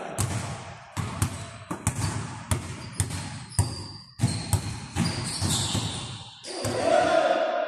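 Basketball bouncing on a hardwood gym floor during play, irregular sharp thuds about twice a second, echoing in the hall. A louder, sustained noise rises near the end.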